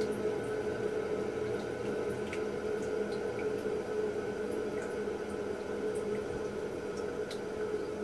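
Toilet cistern refilling after a flush: water running steadily through the fill valve as a continuous hiss with a steady whining tone in it, and a few faint clicks.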